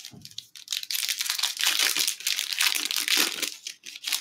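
Trading card pack wrapper being torn open and crumpled by hand: a dense crinkling that starts just under a second in and lasts until near the end.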